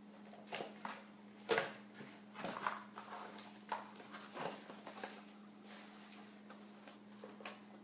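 Faint, scattered soft taps and rustles over a steady low hum.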